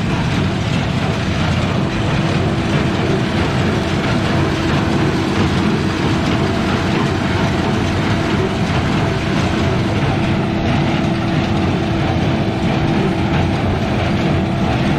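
New Holland 575 small square baler running behind a tractor, baling straw, with the tractor's engine underneath; a steady hum joins about two seconds in.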